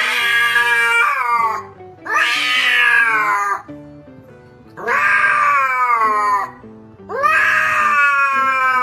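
Cat yowling: four long, loud drawn-out calls, each starting high and sliding down in pitch, over background music.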